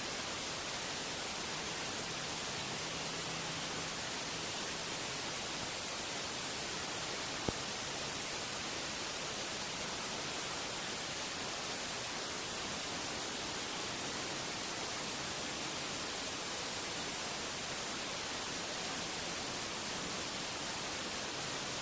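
Steady static-like hiss, even and unchanging, with a single sharp click about seven and a half seconds in.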